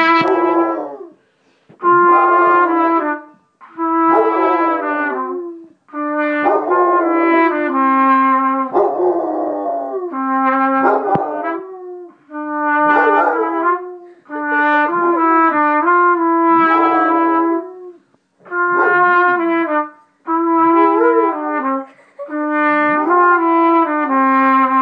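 A trumpet played in short phrases of held notes separated by brief pauses, while a basset hound howls along with it, its wavering howls rising and falling over and between the trumpet notes.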